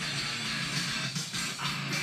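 Music with guitar playing.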